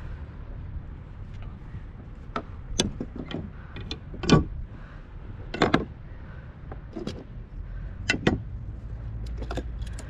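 Irregular clicks and knocks of fishing tackle and hull on a kayak while a hooked barracuda is played on rod and reel, the loudest knock about four seconds in, over a steady low rumble.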